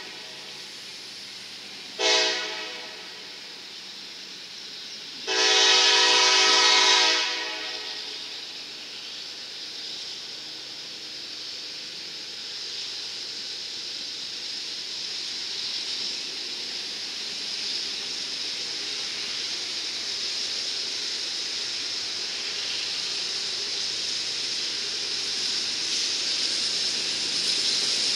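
Norfolk Southern diesel locomotive horn sounding a short blast about two seconds in, then a long blast of about two seconds. After it the sound of the approaching train grows steadily louder.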